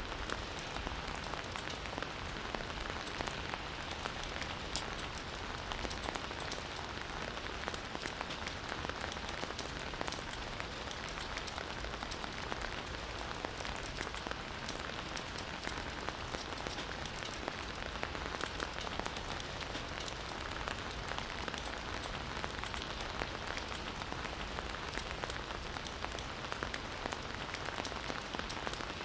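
Campfire crackling steadily, a constant hiss of burning wood dotted with many small sharp snaps.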